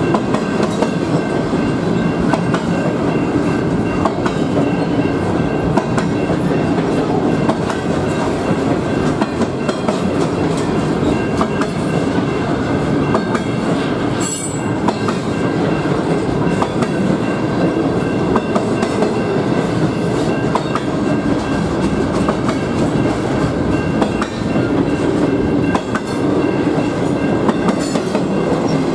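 Double-stack intermodal freight train rolling through a grade crossing: a steady loud rumble of the cars with wheels clicking and clacking over rail joints and the crossing. A steady high ringing tone runs over it.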